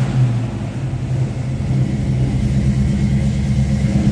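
Car engine idling steadily with an even low hum.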